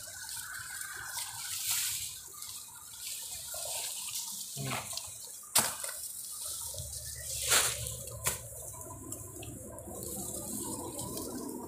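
Rustling and crackling of dry brush and grass stalks as someone pushes through thick undergrowth and pulls at the stems, with several sharp snaps of breaking stalks.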